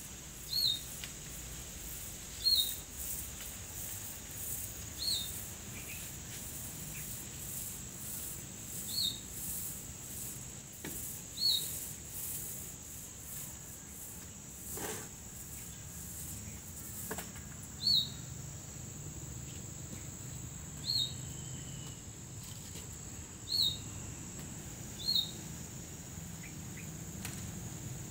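Steady high-pitched drone of insects such as crickets or cicadas, with a single short bird chirp repeating nine times at uneven intervals of a few seconds.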